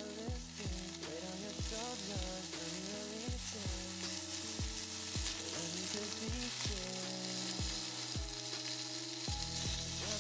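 Shelled shrimp and edamame sizzling in a hot nonstick frying pan as the shrimp are laid in with tongs; the sizzle picks up about a second in. Background music with a steady kick-drum beat plays underneath.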